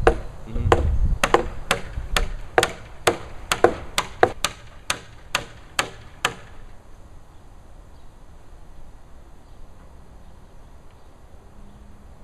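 A mallet repeatedly striking heavy timber, driving a timber-frame joint home. About fifteen sharp blows come at roughly two to three a second and stop about six seconds in.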